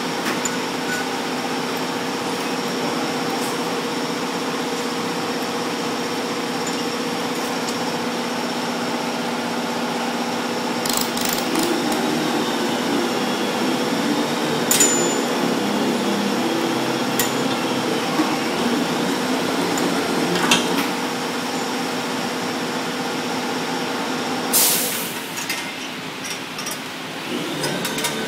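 A welding machine hums steadily, with scattered metallic clinks and taps. Near the end there is a short loud burst of noise, after which the hum stops.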